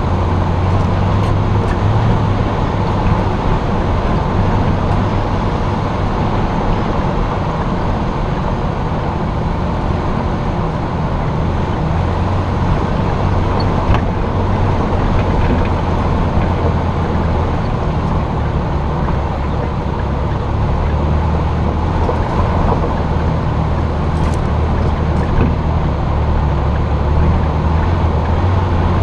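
Jeep driving along a mountain road, heard from its hood: a steady low engine drone mixed with tyre and road noise.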